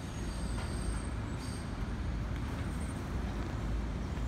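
Steady low rumble of an R62A subway train approaching slowly in the distance along the elevated steel structure, mixed with street traffic.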